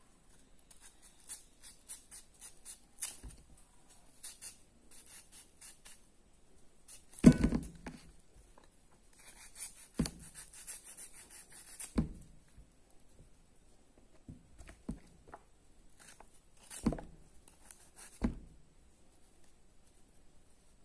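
A knife cutting and scraping into a peeled mango held in the hand: short rasping strokes, broken by about five dull knocks, the loudest about seven seconds in.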